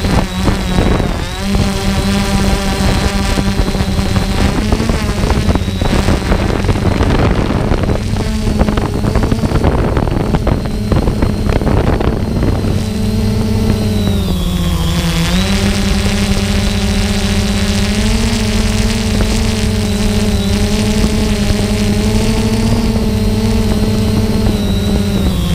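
An engine running at a steady speed, its pitch dipping briefly about fifteen seconds in and again near the end.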